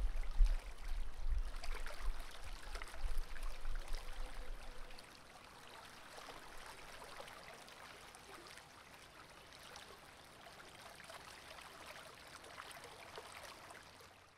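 Stream water flowing. It is louder, with a low rumble, for about the first five seconds, then settles to a fainter steady trickle.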